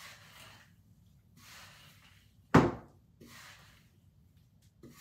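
Hair being brushed out in repeated slow strokes, about one every second and a half. A single loud thunk about halfway through, the loudest sound.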